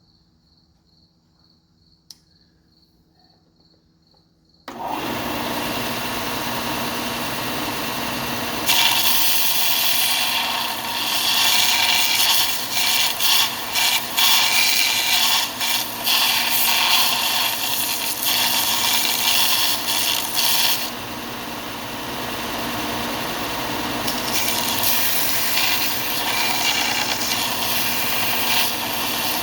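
Belt sander switched on about five seconds in and running steadily; from about nine seconds a screwdriver handle is pressed to the moving belt, a louder, rough grinding that rises and falls as the piece is worked. The grinding eases for a few seconds past the middle, then picks up again.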